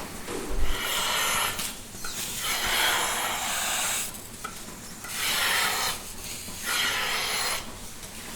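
A low thump, then four rasping, scraping strokes, each about a second long with short pauses between them.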